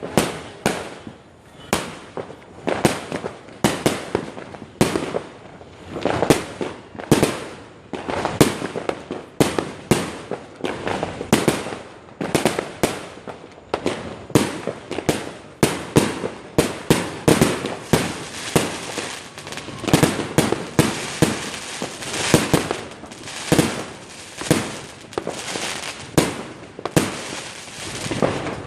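New Year fireworks and firecrackers going off without pause: a dense, irregular run of sharp bangs and pops, several a second, overlapping one another.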